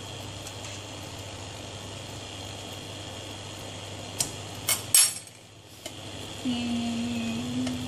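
Pot of water bubbling at the boil while a metal mesh strainer, lifting cooked glass noodles, knocks against the steel pot's rim a few times about four to five seconds in. A low steady hum joins in for the last second or so.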